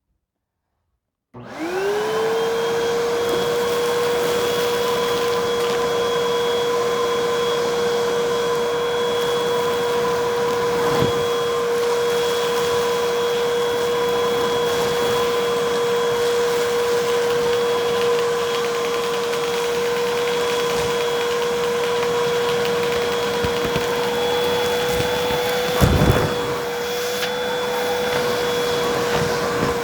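Vacuum cleaner switched on about a second and a half in, its motor quickly rising in pitch to a steady high whine with a rush of air. A few brief knocks break in, the loudest a few seconds before the end.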